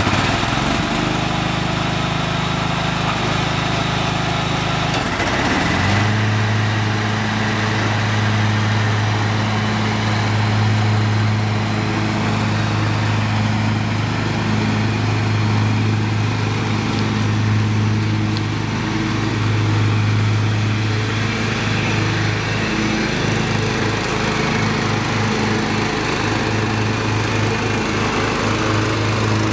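Snapper Yard Cruiser zero-turn riding mower's 14.5 hp engine, freshly tuned up and fitted with a new muffler, running just after starting. It runs at a lower speed for the first five seconds or so, is throttled up about six seconds in, and then runs steadily at the higher speed while the mower is driven.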